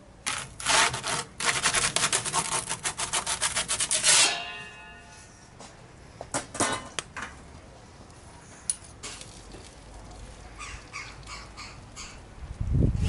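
Metal pizza peel scraping across the stone floor of a wood-fired pizza oven as the pizza is slid off it: a dense run of rapid scrapes for about four seconds that ends in a brief ringing tone. A few lighter scrapes and knocks follow later.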